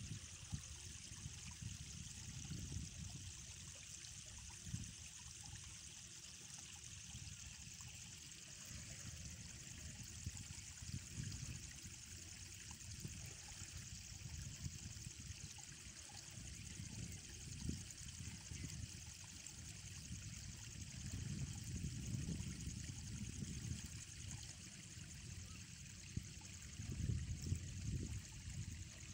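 Faint, steady rush of river water at the bank, with a low rumble that swells and fades and grows louder near the end.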